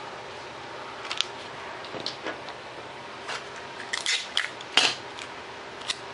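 A paper plan sheet being handled and shifted over foam board on a tabletop: a scattering of short paper rustles and light taps, the longest and loudest about four seconds in.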